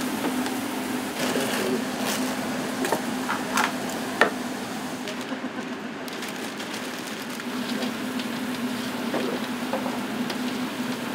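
Fries frying in deep-fryer oil: a steady sizzling hiss over a low steady hum, with a few sharp clicks, the loudest about four seconds in.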